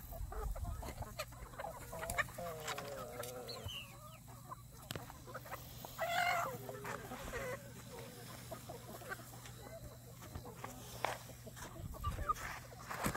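Chickens in a mixed flock clucking, with one louder, higher call about six seconds in, among scattered light clicks.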